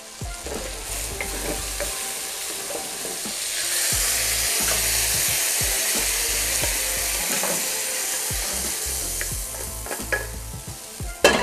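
Chicken thigh pieces sizzling in hot vegetable oil in a stainless steel pan, with a wooden spoon stirring, scraping and knocking against the metal. The sizzle swells about four seconds in as the seared chicken is tipped and scraped out into a metal colander, and a sharp clank comes near the end.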